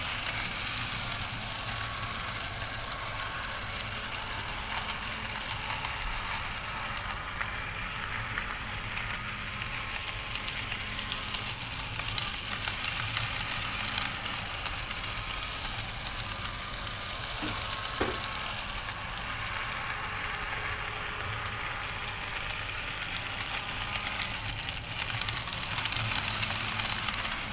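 N gauge model train running on layout track: a steady whirring hiss with a low hum, faint wavering whine and scattered small clicks.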